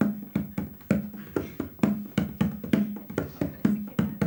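Goblet hand drum played with bare hands in a quick, even rhythm of about three to four strokes a second. Many strokes ring on with a low bass tone.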